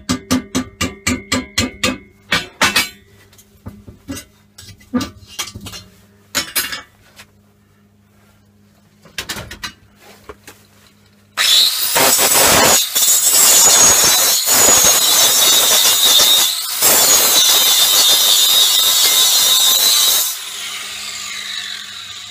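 A run of sharp metallic clicks and taps, then an angle grinder grinding down weld on the steel gas bottle for about nine seconds with one brief break. Near the end it comes off the work and winds down with a falling whine.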